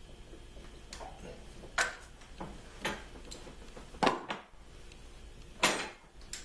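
Hand tools clinking and clanking on metal while loosening exhaust manifold bolts: about eight sharp, irregular clanks, the loudest about two, four and five and a half seconds in.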